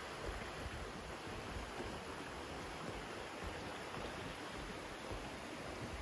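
Steady rushing of flowing stream water.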